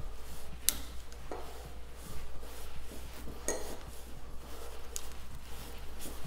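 Metal hand tools clicking and clinking on a workbench as a hex key works the action wrench to free a rifle action, with a few sharp clicks about a second and a half apart.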